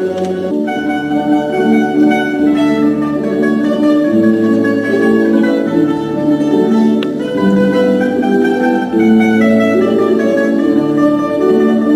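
Mandolin orchestra of mandolins, guitars and double bass playing an overture: held melody notes over a slow-moving bass line.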